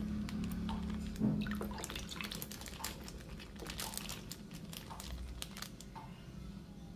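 A thin plastic bag crinkling as a milky dessert with black beans is poured from it into a bowl, with liquid splashing and dripping in short crackly bursts.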